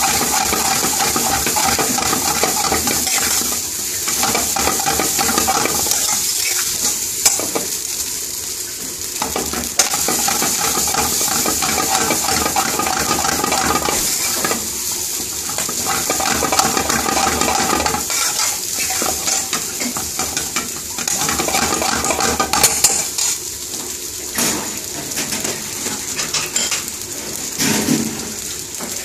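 Rice being stir-fried in a metal frying pan: a metal spoon stirring and scraping through it as the pan is tossed, with frying sizzle underneath. It goes in bouts with short pauses, and the spoon clanks sharply against the pan a few times.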